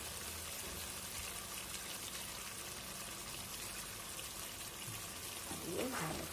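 Spiced onion, ginger, garlic and tomato paste sizzling and bubbling steadily in hot mustard oil in a kadai, while salt trickles into it.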